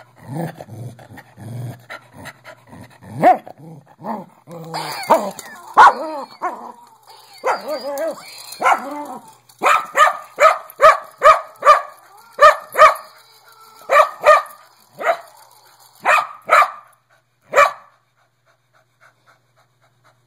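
A dog whining and yipping, then barking repeatedly in short, sharp barks about two a second, at a noise-making toy.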